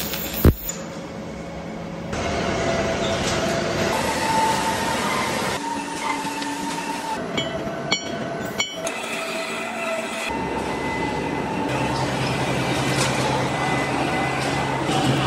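A 99-year-old lathe turning a large steel flange: the cutting tool on the spinning work gives a steady metallic ringing with several held tones. About eight seconds in, two sharp metal knocks come from a hammer striking the flange in the chuck.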